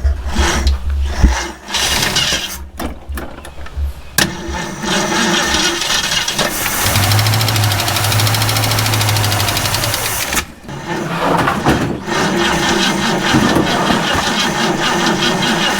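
Starter cranking a 1967 Ford Mustang's engine in two long tries, one starting about four seconds in and the second after a short break near ten seconds, without the engine catching. The booster pack it is cranking on is taken for dead.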